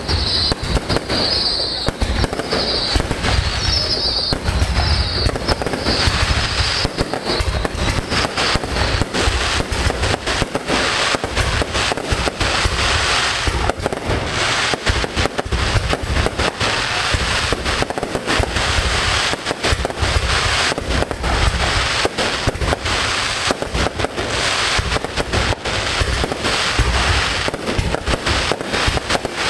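Fireworks display in a continuous barrage: rapid, overlapping bangs and crackling from aerial shells, with a high hissing that pulses about once a second through the first seven seconds or so.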